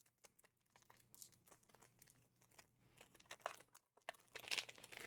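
Soft crinkling and rustling of a trading-card booster pack wrapper and cards being handled, with small scattered ticks. The rustling is loudest about four and a half seconds in.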